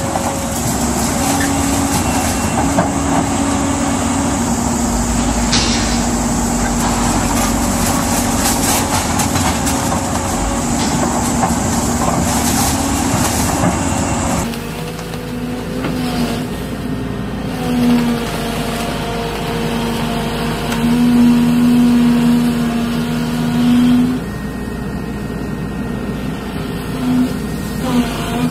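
Hydraulic excavator's diesel engine running under load while a hydraulic concrete pulverizer on its arm crushes reinforced concrete. About halfway through, the sound changes abruptly to a second excavator's engine, which swells and eases several times as its hydraulics take load.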